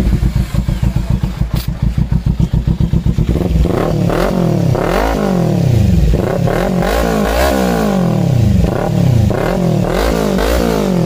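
Kawasaki Ninja 300's parallel-twin engine idling through an aftermarket slip-on exhaust, then revved repeatedly from about three and a half seconds in, its pitch rising and falling with each blip of the throttle.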